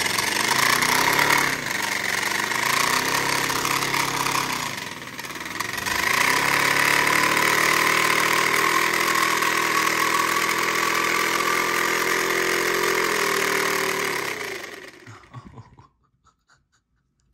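Paper-built V-twin air engine running fast on air from ten balloons: a loud, steady, rapid mechanical buzz that dips about five seconds in, holds steady, then dies away and stops about fifteen seconds in as its air runs out.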